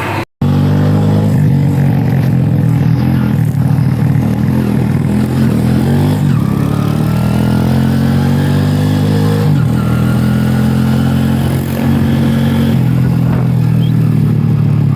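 Motorcycle engine running under way, its revs climbing and then dropping back several times as it shifts gears.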